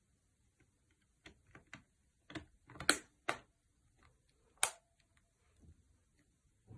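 A series of sharp clicks and taps from handling a Nokia Lumia 630 phone during reassembly. There are about seven, scattered irregularly, with the loudest about three seconds in and again just before five seconds in.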